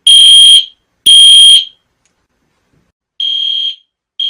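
Fire alarm sounding in its three-beep evacuation pattern: high electronic beeps about half a second long, roughly one a second. Two beeps, a pause of about a second and a half, then two more, quieter.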